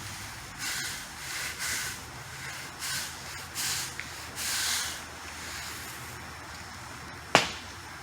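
Dyson vacuum head worked back and forth over concrete wet with degreaser and oil, a series of about seven hissing, swishing strokes as it sucks up the oily liquid, then one sharp click about seven seconds in.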